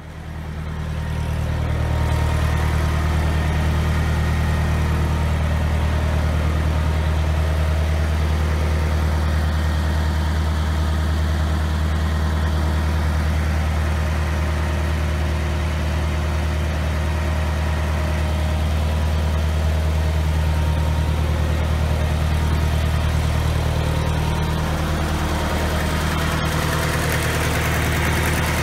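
John Deere tractor engine idling steadily with a deep, even drone. It rises in level over the first couple of seconds.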